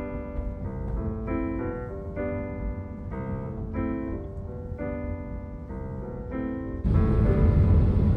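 Piano music playing a repeating pattern of sustained chords, over a steady low rumble of the car. About seven seconds in, a louder steady rush of road noise comes in under the piano.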